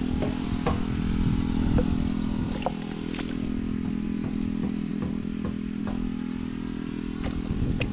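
A small engine running steadily at an even speed, with a few light clicks scattered over it.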